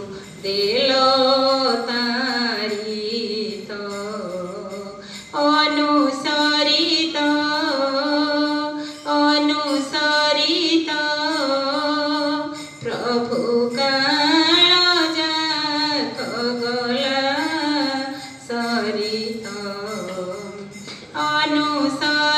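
Background music: a woman singing a devotional song in long, ornamented melodic phrases, with short pauses every few seconds.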